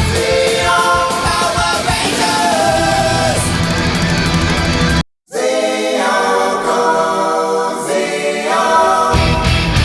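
Rock song with sung vocals. It cuts out for a moment about five seconds in, and the bass and drums drop away for a few seconds before coming back in.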